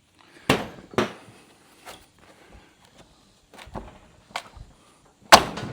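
Sharp wooden knocks and bangs as a rotted barn header board that has broken loose is worked off the framing: two loud knocks about half a second apart near the start, a few lighter taps, and the loudest bang near the end.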